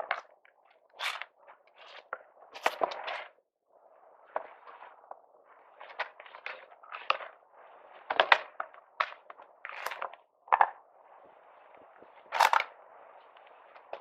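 A string of irregular sharp clicks, knocks and scrapes with short pauses between them, the handling noise of hands or a tool at work.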